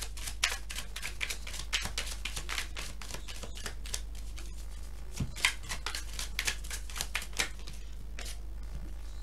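A deck of tarot cards being shuffled by hand: a quick, irregular run of light card slaps and flicks, over a low steady hum.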